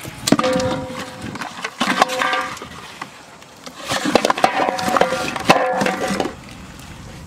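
Fish and plastic bottle rigs clattering into a metal basin, the basin ringing; three bouts of clatter, the longest starting about four seconds in.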